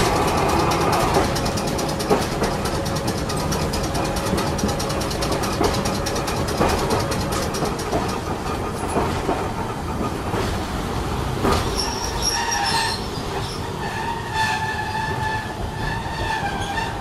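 Vintage 570-series Hiroshima Electric Railway tram running, heard from inside the car: a steady rumble with scattered clicks from the rails. From about twelve seconds in, a high metallic squeal comes in and out as the tram slows toward a stop.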